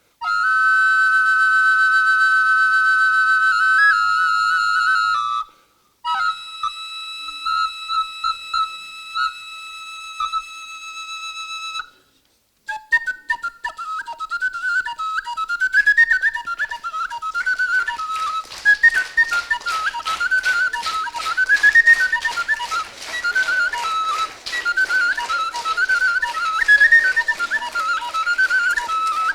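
Balkan shepherd's double flute played solo, built to imitate a two-voice folk song. First come long held notes with a second voice sounding just above them, in two phrases. From about twelve seconds in it plays a fast, ornamented melody over a quick, even pulse.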